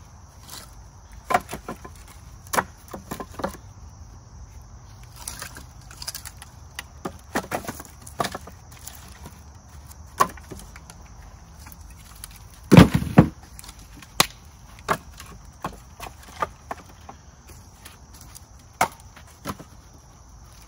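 Split firewood pieces knocking against each other as they are set one by one into a wooden bundling rack: irregular wooden clacks about every second, with the loudest cluster of thuds about 13 seconds in.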